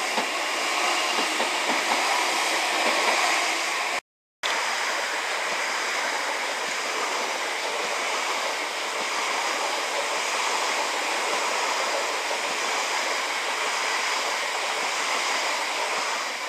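Greater Anglia electric multiple-unit train passing close by without stopping: a steady, loud rush of wheels on rail and moving air. The sound cuts out suddenly for a moment about four seconds in.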